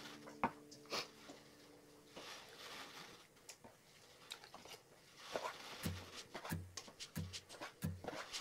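Chef's knife cutting octopus tentacles on a wooden cutting board: faint scattered clicks of handling first, then about five short knife strokes knocking on the board over the last few seconds.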